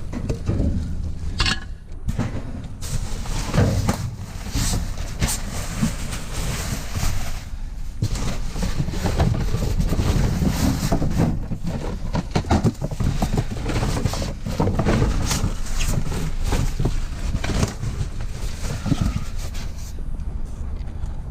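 Rummaging through a curbside trash pile for scrap metal: irregular clinks and clatter of metal pieces being handled and moved, over a steady low rumble of wind on the microphone.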